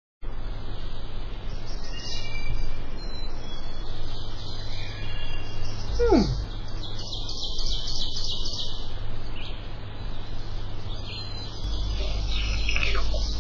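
Birds chirping and singing in a continuous outdoor ambience over a steady low hum. About six seconds in, a single fast falling glide slides from high to low pitch.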